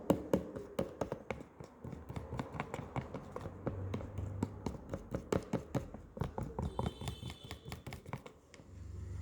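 Glue slime being stirred with activator in a container: a quick, irregular run of small sticky clicks and taps that thins out near the end.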